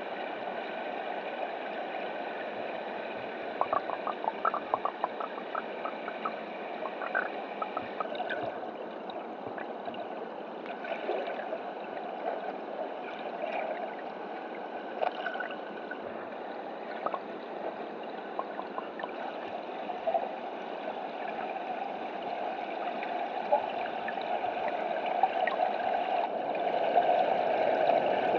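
River current rushing past an underwater camera: a steady watery hiss with scattered small clicks and ticks, growing louder near the end.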